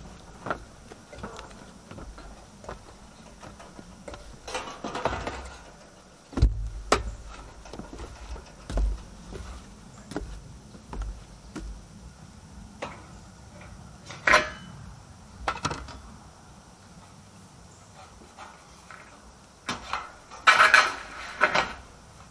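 Freshly cut metal roofing panels being handled and moved: scattered light metallic clanks and rattles, with louder clatters about five seconds in, about fourteen seconds in and near the end.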